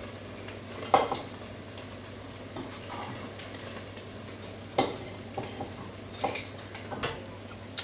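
Battered chicken frying in a deep fryer, the oil sizzling steadily. A metal slotted spoon clinks several times against the fryer pot as pieces are scooped out, the loudest clink about a second in.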